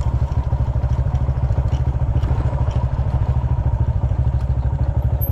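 Motorcycle engine running at low revs as the bike rolls slowly over a rough dirt track, a steady rapid pulsing.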